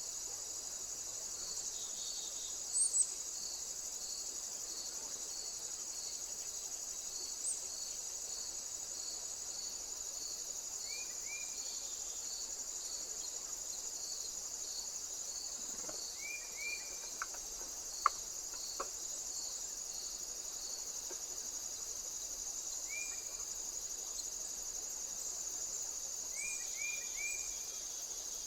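Steady high-pitched drone of insects, with a cricket-like chirp repeating about every half second. A few short bird chirps and a handful of sharp clicks come in around the middle and near the end.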